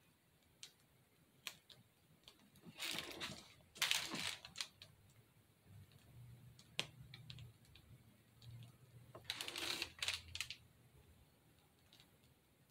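Faint crinkling and squishing of a plastic piping bag being squeezed to pipe lightweight spackle, with scattered small clicks and taps. Louder rustles come twice about three to four seconds in and again about nine to ten seconds in.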